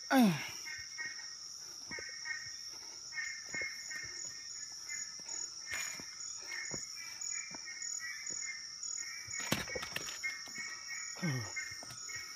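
Evening insect chorus in tropical forest: a steady high-pitched drone with rhythmic chirping running beneath it. Two short sounds fall steeply in pitch, one about a second in and one near the end.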